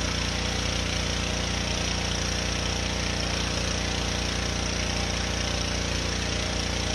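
Pressure washer running steadily: a constant motor and pump drone under the hiss of the water spray.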